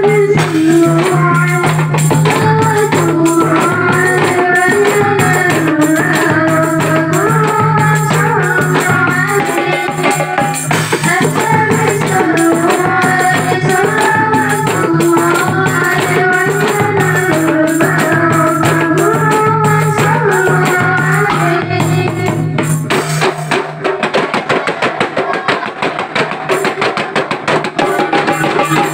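Marawis ensemble playing: hand drums and tambourine jingles under a female voice singing a melismatic melody, over a steady low drone. Near the end the singing stops and the drums play on alone.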